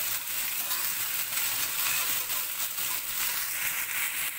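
Chopped pumpkin stems, banana stem and potato sizzling in hot oil in a metal kadai, a steady hiss with fine crackling.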